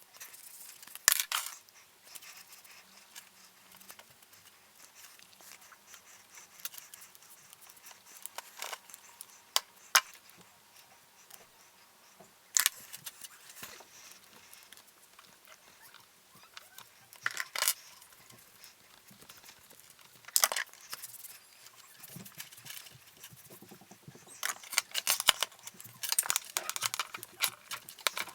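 Scattered sharp clicks and light clatter of small plastic and metal parts and tools being handled while an RC truck is taken apart, growing busier near the end.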